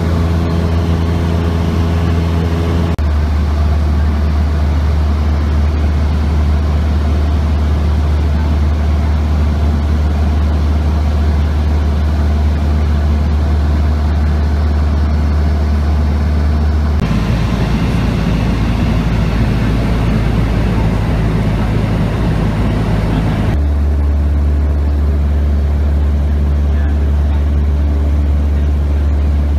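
Cessna 172's four-cylinder piston engine and propeller droning steadily, heard from inside the cabin. The drone changes in tone abruptly three times.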